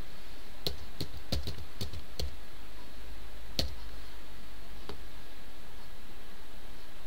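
Computer keyboard keys being typed in a quick run of about six strokes, then two more single clicks near the middle, over a steady low hum.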